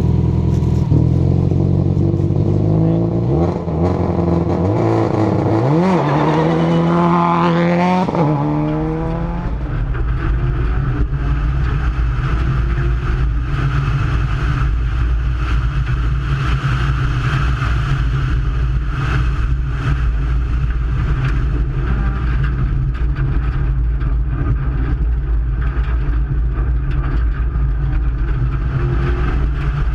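Subaru WRX rally car's turbocharged flat-four engine revving up and down a few times, with a long rising rev at about eight seconds. It then settles into a steady, loud low drone.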